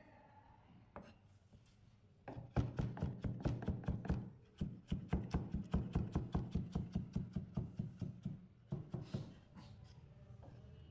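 Chef's knife rapidly cutting carrot into julienne strips on a plastic cutting board, about five even strokes a second. The strokes start about two seconds in, break off briefly near the middle and stop a couple of seconds before the end.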